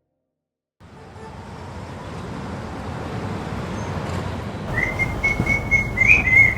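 A steady, rumbling background noise like street traffic fades in and grows louder, and about five seconds in someone whistles a few notes.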